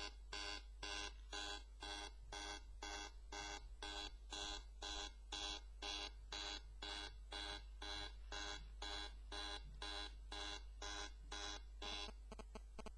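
iPhone 4S loudspeaker glitching, repeating a short pitched beep about two to three times a second until it cuts off near the end. This is the iOS 6.0.1 audio bug that sets in after phone calls and that only turning the phone off clears.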